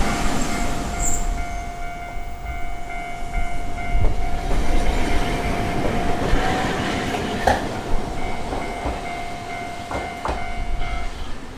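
Hankai Line tram passing over a level crossing, with a steady pitched tone until near the end and a few sharp clacks of its wheels over the rail joints.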